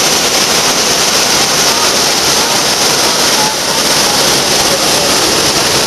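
Whitewater pouring over a river fall and rapid, a loud steady rush.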